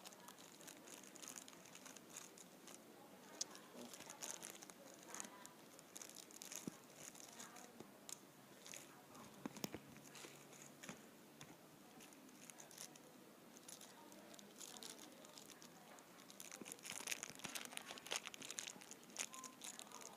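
Faint crinkling and rustling of packaging being handled, with scattered small clicks, busier near the end.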